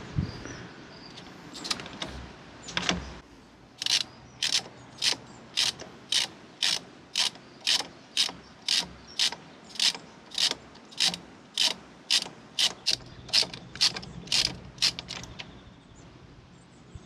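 Hand ratchet turning a spark plug socket to unscrew a motorcycle spark plug: a steady run of short ratcheting click-bursts on the return strokes, about two a second, starting about four seconds in and stopping a couple of seconds before the end, with a few odd clicks before it.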